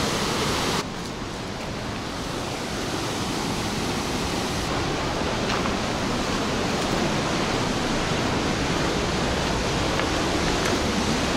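Steady rushing of rough sea surf breaking on a rocky shore below. It drops a little about a second in, then slowly builds back.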